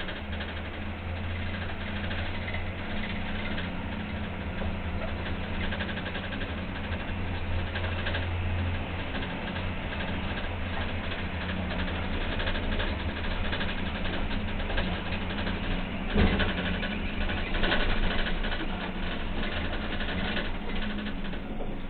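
Straddle carrier's diesel engine running with a steady low hum, heard from inside the cab, with a single knock about sixteen seconds in.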